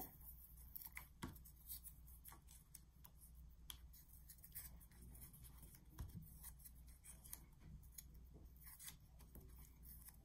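Faint, irregular rustles and soft taps of small torn paper scraps being picked up and pressed down onto glue-stick glue on cardstock.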